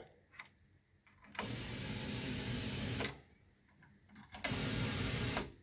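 A test loudspeaker fed by an Onkyo TX-NR808 receiver's speaker outputs plays a rushing noise test signal in two bursts, about a second and a half and then about a second long, as a probe is touched to successive channel terminals, with a small click just before the first. The signal on each channel shows the receiver's amplifier channels are passing audio after repair.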